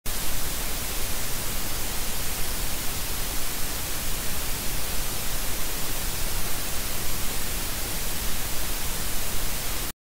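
White-noise static: a dense, even hiss across all pitches, brightest in the highs, with a fast flutter in level. It cuts off suddenly near the end.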